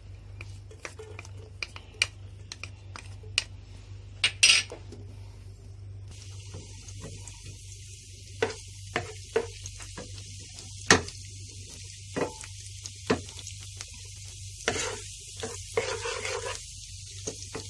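Crushed garlic tipped into hot oil in a nonstick pan and stirred with a wooden spatula, which knocks and scrapes against the pan again and again. About six seconds in, a steady sizzle of the garlic frying in the oil sets in.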